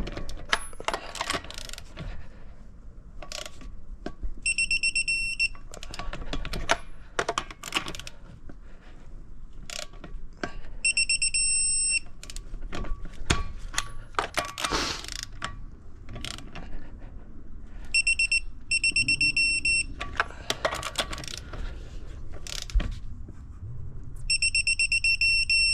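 Lug nuts being tightened in a star pattern with a wrench, sharp clicks and knocks throughout. A high electronic beep sounds four times, about every six or seven seconds, each lasting about a second.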